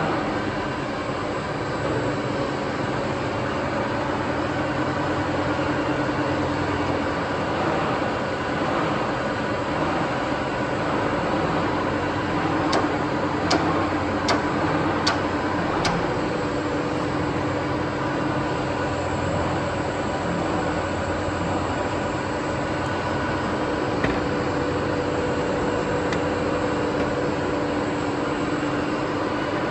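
Dean Smith & Grace Type 25 centre lathe running under power, its motor and headstock gearing giving a steady mechanical whir with a constant hum. Four sharp ticks come a little under halfway, and the pitch of the whir shifts slightly just after.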